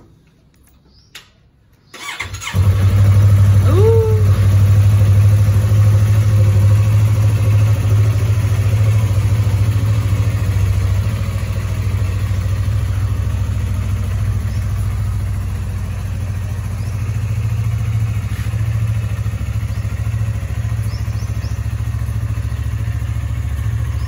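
Yamaha sport motorcycle's engine starting about two seconds in, catching at once, then idling steadily.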